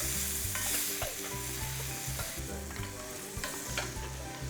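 Chicken pieces sizzling in oil in a frying pan as they are stir-fried, with the spatula scraping and tapping against the pan several times.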